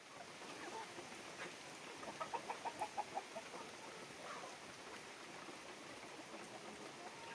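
Free-range chickens clucking, with a quick run of about eight clucks about two seconds in, over a faint steady hiss.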